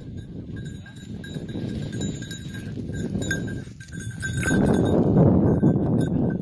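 Low rumbling noise on the microphone, growing louder about four and a half seconds in, over a faint steady high ringing of bells.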